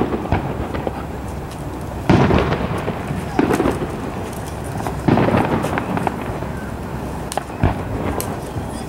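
Aerial firework shells bursting over the river: about four deep booms a second or two apart, each rolling on, with crackling in between.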